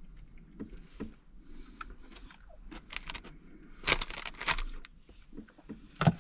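Chewing, then the crackling and crinkling of an open bag of chicharrones as a fork rummages in it, loudest in two spells about three and four seconds in.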